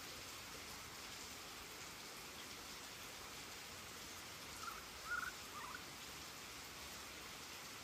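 Heavy rain falling steadily, a constant hiss. About five seconds in, three or four short high squeaks come in quick succession.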